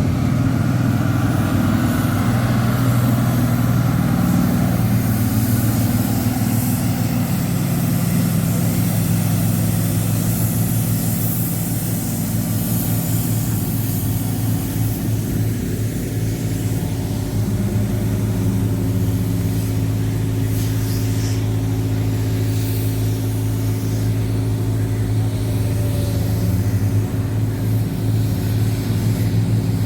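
Kawasaki K12II road roller's diesel engine running steadily, easing off a little midway and picking up again near the end.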